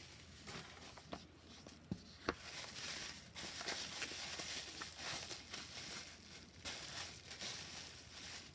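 Packaging being handled and opened by hand: on-and-off rustling, crinkling and tearing, with two sharp clicks about two seconds in.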